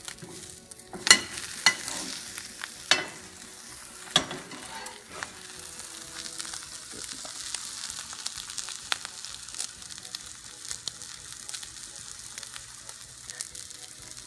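Omelette sizzling in a frying pan, with a spatula scraping and knocking against the pan a few times in the first few seconds as the omelette is flipped.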